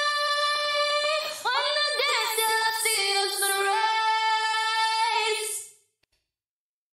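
Female lead vocal singing long held notes, heard through Altiverb's SARM West Studios stairwell convolution reverb. The singing stops about six seconds in.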